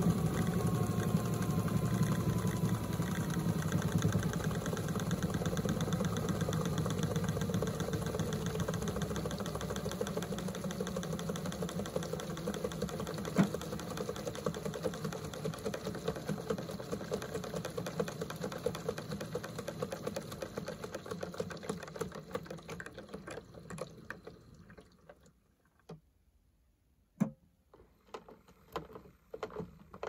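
Toy washing machine's small electric motor turning the drum with water and fabric inside during its spin-wash stage, a steady hum that slowly winds down and stops about 25 seconds in. A few scattered clicks and knocks follow near the end.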